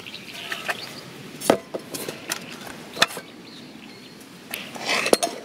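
Camping cookware, a metal pot and frying pan, being set down on a light homemade table: a few scattered knocks and clinks, the sharpest near the end.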